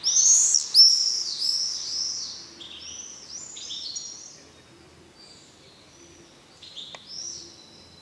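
Early-morning songbird song. A loud run of quick, high chirping notes opens it and fades over about four seconds, and a shorter, quieter phrase comes near the end.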